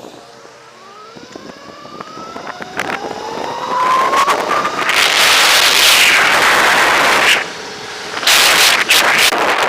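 Throne SRPNT electric motorbike's motor whining and climbing steadily in pitch as it accelerates. Loud wind noise on the microphone builds over it from about four seconds in, drops away briefly near the end, then returns.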